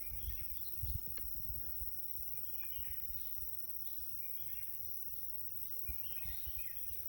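Steady high-pitched drone of insects, with chirping calls every second or so and a few soft low bumps from handling, mostly in the first second and near the end.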